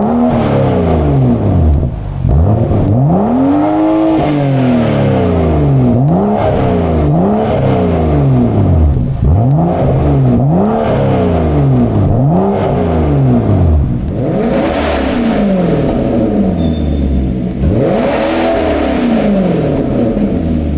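Performance car engine with an aftermarket exhaust being revved in repeated short blips, about one a second, each rising in pitch and falling back to idle.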